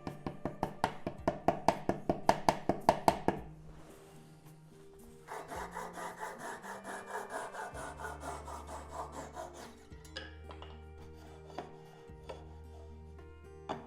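Rhythmic back-and-forth strokes of a hand tool on walnut, such as a hand saw or rasp, about four strokes a second for the first three seconds, then a quieter, quicker run of strokes from about five to ten seconds in.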